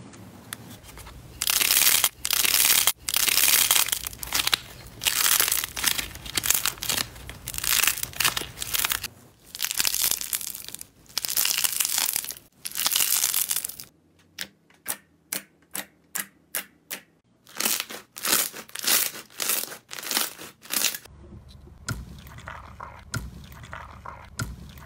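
Hands squeezing, bending and stretching slime and soft clay, making crackling, crinkling sounds. From about halfway there is a run of short sharp pops, about three a second, then softer crackling near the end.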